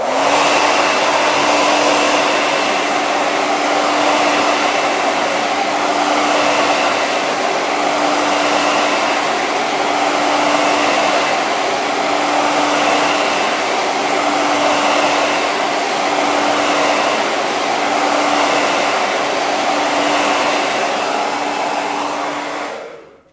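Hair dryer running steadily, blowing hot air to soften the double-sided tape under a phone's screen. It switches on abruptly at the start, its steady hum swelling and fading slightly every couple of seconds, and cuts off shortly before the end.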